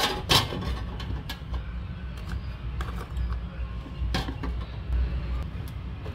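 Oyster shells knocking against an air fryer basket as they are set in one by one: several sharp separate clacks, the loudest about a third of a second in, over a steady low hum.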